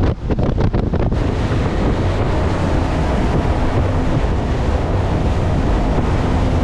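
Wind buffeting the microphone on a motorboat under way, over the steady rush of the engines and the hull through the water. Gusty for about the first second, then steady.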